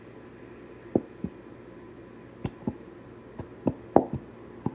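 Scattered light taps and knocks from a glitter-glue bottle and plastic cup being handled while glue is added, coming more often toward the end.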